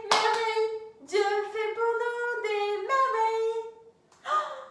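A woman singing a short unaccompanied phrase of held notes, opening with a hand clap.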